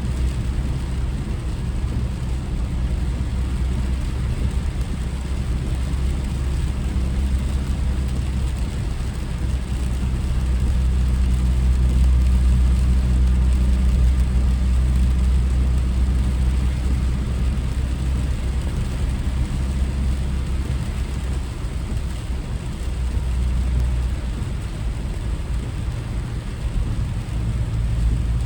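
A car being driven: a steady low engine and road drone with tyre noise. It grows louder for several seconds about a third of the way in, then eases off.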